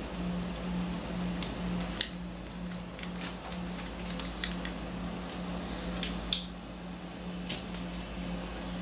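Gloved hands pushing a crimped spade terminal on a jumper wire onto a sealed lead-acid battery's tab and handling the batteries: scattered sharp clicks and light plastic taps, the loudest about two seconds in and again just past six seconds. Under them runs a steady low hum that pulses evenly a few times a second.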